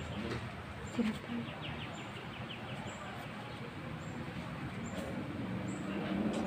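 Classroom ambience: low background voices with a short, fast run of faint bird chirps, and a soft bump about a second in.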